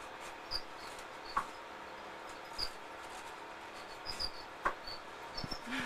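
Quiet room tone: a steady faint hiss with a few scattered, very short high chirps and a couple of soft ticks.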